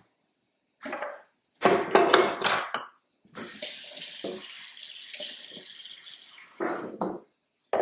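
Kitchen faucet running water into a plastic Vitamix blender jar for about three and a half seconds, filling it to blend herbs, ginger and garlic. Before it come a few loud clattering knocks, and a couple more near the end.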